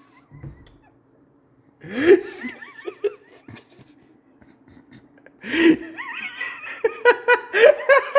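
Young people laughing: a couple of short outbursts, then building into continuous giggling in quick regular pulses near the end. A faint steady low hum runs underneath.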